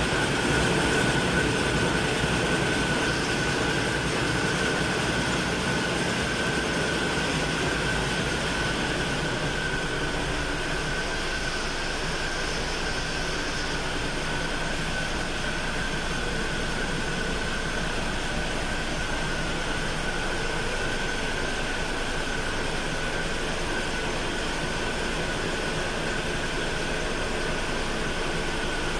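A 1000 hp Hanshin marine diesel main engine running in the ship's engine room: a steady, unbroken machinery din with a constant high whine over it.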